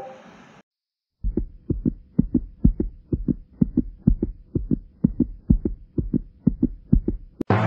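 Rapid heartbeat sound effect, about three to four low beats a second, over a faint steady hum. A short chat-notification chime sounds at the very start, and a click and music come in at the very end.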